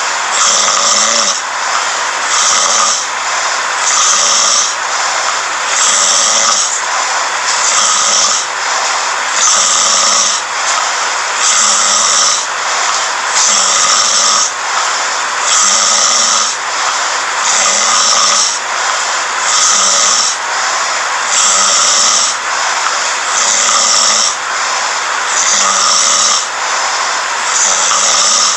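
A person snoring in sleep, one loud breath cycle about every two seconds, keeping an even rhythm.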